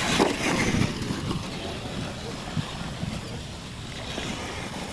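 Electric motors of R/C monster trucks running as the trucks race over the dirt, dying down after about a second, with wind noise on the microphone.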